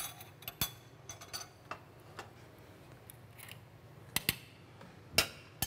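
A few scattered sharp clicks and light clinks of metal kitchen utensils, with a pair of clicks about four seconds in as a spoon is lifted from a steel utensil holder.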